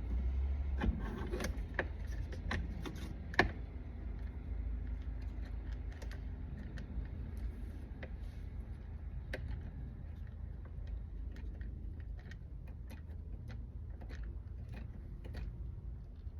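Scattered light clicks and small metallic ticks of hand work with a screwdriver, driving a small screw to fasten a shifter handle, with a few sharper clicks in the first few seconds. A steady low hum runs underneath.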